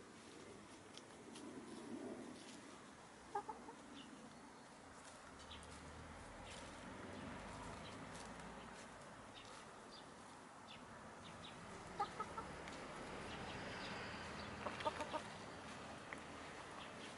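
Domestic hens clucking: a couple of short clucks about three seconds in, a few more about twelve seconds in, and a quick run of clucks near fifteen seconds.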